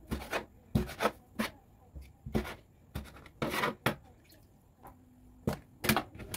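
Food preparation handling sounds in a kitchen: irregular knocks, taps and short rubbing or scraping noises, a few a second.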